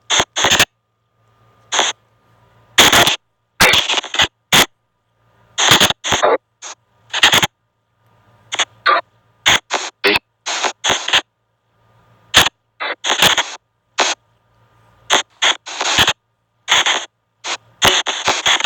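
Spirit box app on an Android phone playing rapid, irregular bursts of chopped static and sound fragments, each a fraction of a second long, with silent gaps between them.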